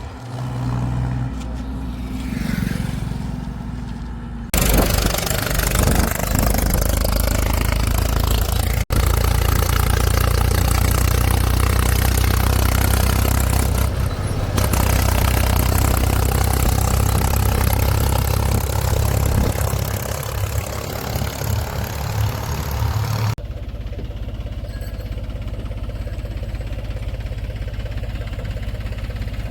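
Diesel engines of a backhoe loader and farm tractors running steadily. The sound changes abruptly about four seconds in, again near nine seconds, and about twenty-three seconds in, and is loudest in the long middle stretch.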